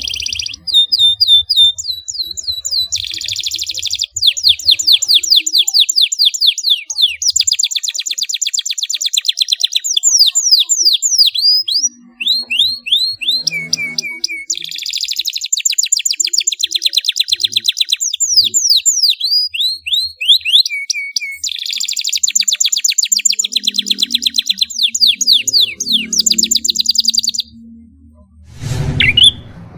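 Domestic canary singing a long rolling song: fast trills of rapidly repeated high whistled notes, switching from one trill to the next with short breaks between runs.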